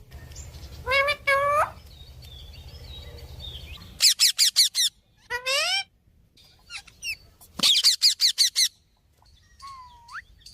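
Pet ringneck parakeet and myna calling with shrill, rising squawks: a pair about a second in, quick runs of about five calls around four and eight seconds in, and a short rising whistle near the end.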